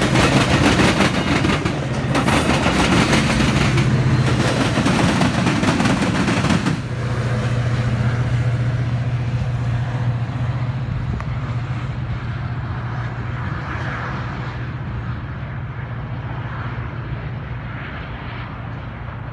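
Metra double-deck commuter train cars rolling past with wheels clattering on the rails. After about seven seconds the last car clears and the steady drone of the diesel locomotive at the rear of the train remains, fading slowly as it recedes.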